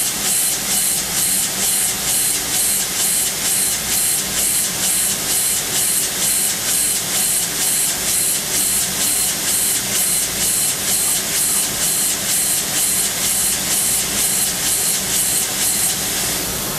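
CNC machining centre peck-drilling hardened SKD61 tool steel with a 1 mm OSG three-flute carbide drill at 13,000 rpm: a steady high hiss that pulses about three times a second as the drill pecks in and out. The pulsing stops near the end.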